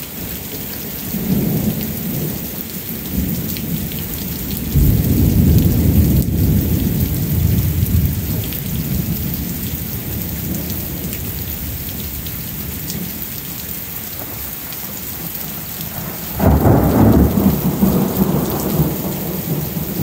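Steady rain hiss with rolling thunder. A rumble swells about five seconds in and dies away over a few seconds, and a second clap of thunder breaks sharply about sixteen and a half seconds in.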